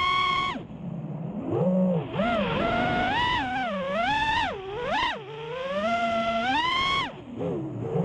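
FPV freestyle quadcopter's brushless motors and props (Emax Eco 2207 1700kv motors on 6S, Gemfan Hurricane 5146 props) whining, the pitch swooping up and down quickly with the throttle. The whine climbs high and then drops away suddenly twice, as the throttle is chopped for flips and dives.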